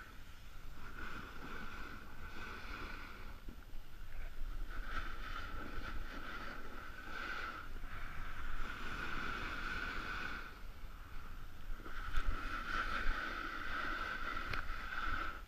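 Hiss and scrape of snow sliding under a rider's edges, swelling and fading every one to three seconds as the rider turns, over a low rumble of wind on the microphone.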